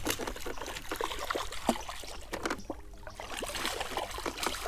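Hooked snook splashing at the water's surface, a run of short sharp splashes and drips.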